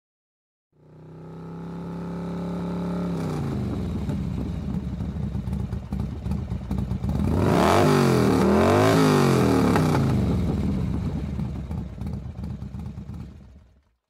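Motorcycle engine running steadily, then revved twice, its pitch rising and falling around eight and nine seconds in, before fading out.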